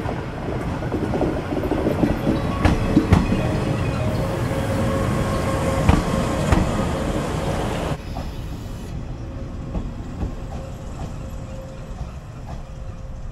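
JR West 381-series electric limited express train running in along the platform: a heavy rumble with sharp wheel clacks over the rail joints and a thin steady whine. About eight seconds in the sound drops abruptly to a quieter, duller train sound.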